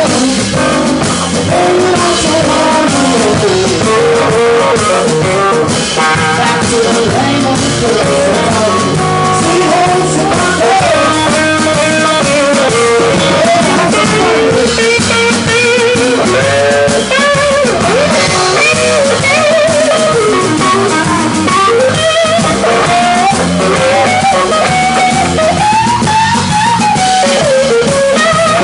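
A live blues band playing on electric guitars and drum kit, with a lead line of bending, sliding notes carrying the melody over the rhythm.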